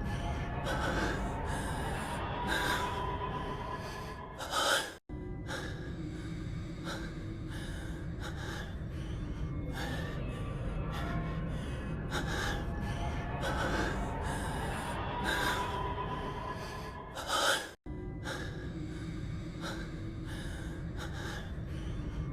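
A man's heavy panting breaths and gasps, one short voice clip looped about every 13 seconds over low music. Each loop ends in a sharp gasp and a split-second cut to silence.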